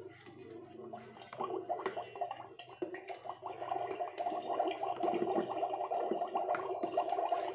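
Magic Mixies toy cauldron bubbling and gurgling as its wand stirs the mixture: a continuous stream of quick bubbling pops, louder from about a second in.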